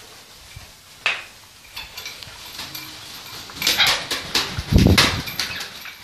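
Macaws flapping their wings close by in irregular bursts, the loudest near the end, mixed with short hissing squirts from a hand spray bottle as the birds are misted for a bath.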